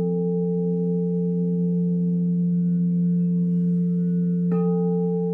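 Singing bowls ringing in steady held tones, one low and one higher. A bowl is struck again about four and a half seconds in, adding a brighter ring that fades.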